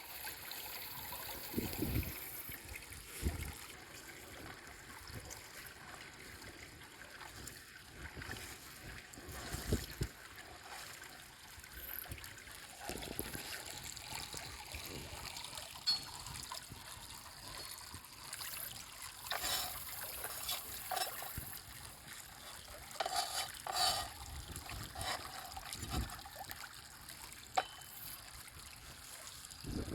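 Flowing river trickling steadily, with a few scattered soft thumps and knocks from close handling.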